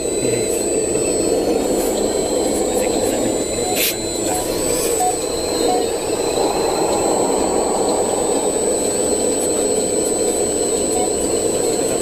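Hydraulic pump of a 1/12-scale RC hydraulic excavator running steadily, a continuous whirring whine with a thin high tone on top, and a single click about four seconds in.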